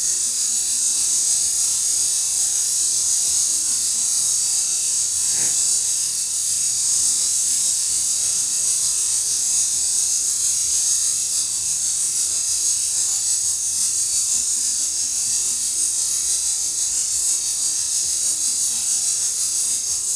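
Eastern diamondback rattlesnake rattling its tail without pause, a steady high, hissing buzz: the snake's defensive warning rattle.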